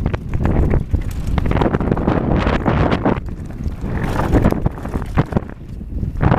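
Wind buffeting a helmet-mounted camera's microphone over the irregular clatter of a Commencal Meta AM V4 enduro mountain bike descending fast over loose rocks: tyres crunching on stones and the bike rattling and knocking over the bumps.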